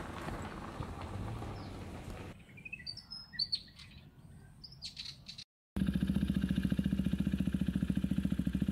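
A rushing hiss at first, then birds chirping for a few seconds, then after a short break a Husqvarna Svartpilen 401's single-cylinder engine idling with a steady, rapid pulse.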